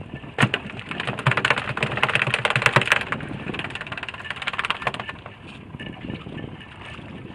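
Fishing tackle handled at a boat's rail: a sharp click, then about four seconds of fast, dense clicking and rattling that fades out.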